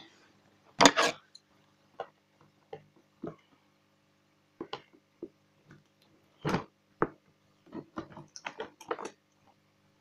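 Hands handling a cardboard box and working at it with scissors: scattered clicks and knocks, the loudest about a second in and around six and a half to seven seconds, with a busier run of them near the end.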